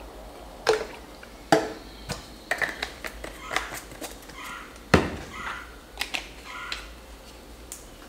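Plastic bottles handled while baby oil is poured into a small clear measuring bottle: a few sharp clicks and knocks, with short bursts of pouring liquid and plastic rustle in between.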